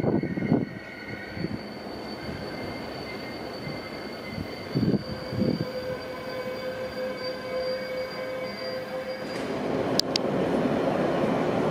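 Flixtrain passenger train drawing in to an underground station platform, with a steady high-pitched squeal and two dull knocks about five seconds in. Near the end, after a sharp click, a louder rumble comes from another train approaching through the tunnel.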